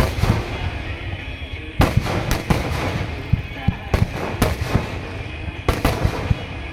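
Fireworks finale: aerial shells bursting in quick succession, a constant deep rumble of booms with sharp cracks, the loudest about 2, 4 and 6 seconds in.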